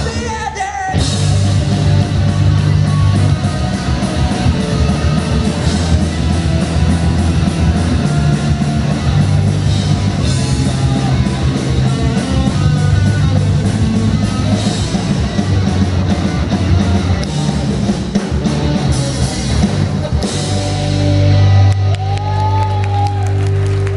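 Rock band playing live in a large hall: electric guitars, a drum kit and a singer. About twenty seconds in the song's final chord is struck and left ringing.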